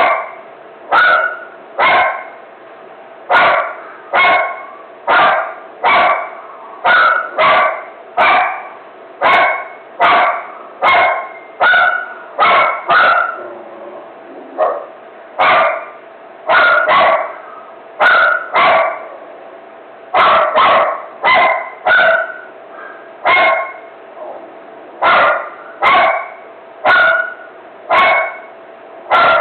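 A dog barking over and over, single sharp barks at about one to two a second, with a brief pause about halfway through.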